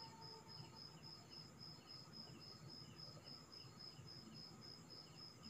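Faint cricket chirping: a steady, high, even pulse about four times a second over near silence.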